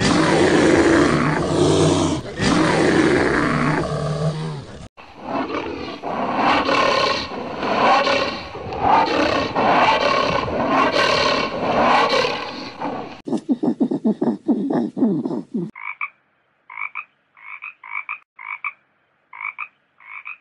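A string of different animal calls cut together: a deep roaring call for the first few seconds, then rhythmic calls about once a second, then croaking. Near the end come short separate croaks repeated at irregular intervals, with silence between them.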